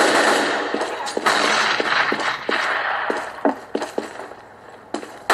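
Video game gunfire playing from a laptop's built-in speakers: dense bursts of shots in the first half, thinning to scattered single shots and a quieter stretch near the end.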